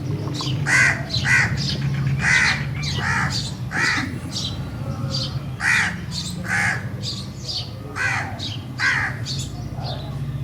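Several crows cawing over and over, overlapping harsh caws coming about one or two a second, above a steady low hum.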